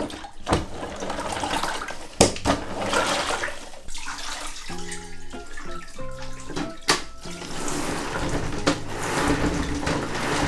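Water splashing and sloshing in a plastic spin-mop bucket, with a few sharp knocks.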